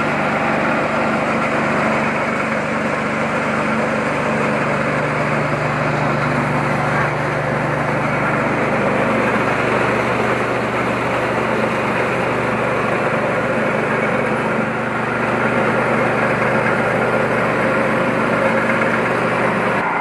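KD 580 WG Pro mini rice huller driven by its small engine, running steadily: a constant engine hum under a dense milling noise. It grows a little louder about three-quarters of the way through.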